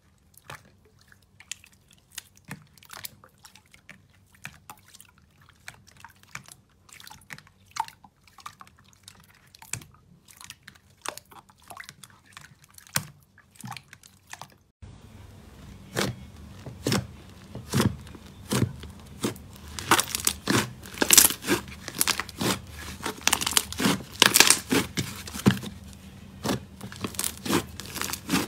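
Slime being squeezed and pressed by hand, giving a run of crackling, popping clicks. About halfway through it cuts to a louder clip with denser crackling.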